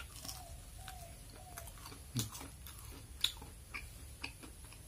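A person chewing a crisp fried mung dal pakora: soft crunches and mouth clicks, with two louder crunches about two and three seconds in.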